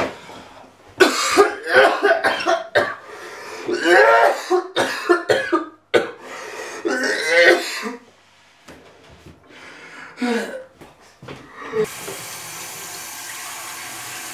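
A man coughing in harsh, choking fits with strained voice sounds, then a few weaker coughs. Near the end a kitchen tap runs into a glass with a steady hiss.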